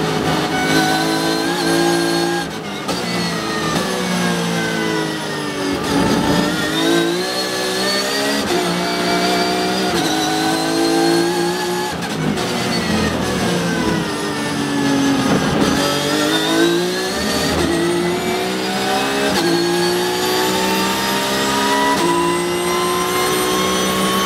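Porsche 911 GT3 Cup race car's flat-six engine heard from inside the cockpit at racing speed, revving up and stepping through gear upshifts. Twice, about six and about fifteen seconds in, the pitch falls through downshifts under braking, and near the end it runs in a long pull up through the gears.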